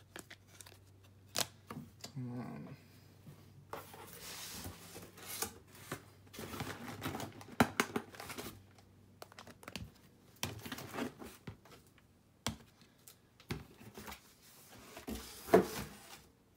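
Hard plastic trading-card cases clacking and sliding against each other as they are handled and set down on a wooden table: an uneven run of sharp clicks and short scraping rustles.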